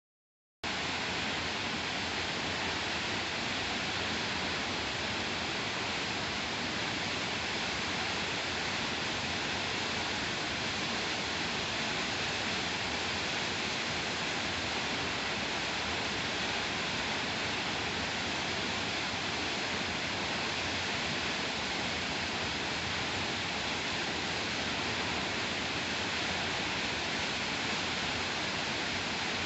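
Waterfall's steady rush of falling water, cutting in abruptly just after the start.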